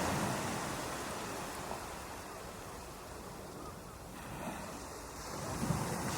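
Ocean surf on a beach: a wave's wash dies away in the first seconds, and the next wave builds and breaks near the end.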